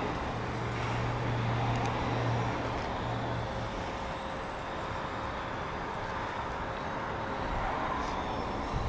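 Steady outdoor vehicle noise: an engine running with a low hum that fades out about four seconds in.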